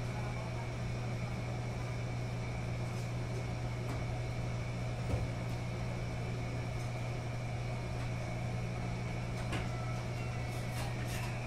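Commercial front-loading washing machines running in a laundromat: a steady low hum with a faint high whine over it and a few light clicks. One small knock comes about five seconds in.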